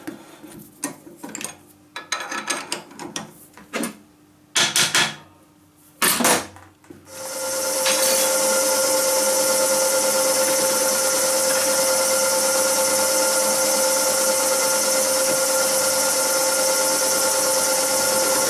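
Scattered knocks and scrapes of chips being cleared off a milling machine table. About seven seconds in, the milling machine starts, and a freshly resharpened end mill cuts the end of a steel block with a steady hiss and a few held tones.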